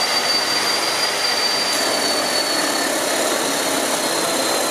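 Bosch abrasive cut-off saw running under load, its spinning disc grinding through a steel round bar with a steady high whine over a harsh rasp. The whine sags a little in pitch as the disc takes the cut.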